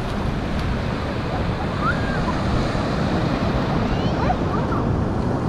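Ocean surf washing on the beach, a steady rush of waves mixed with wind on the microphone, with a few brief faint voices.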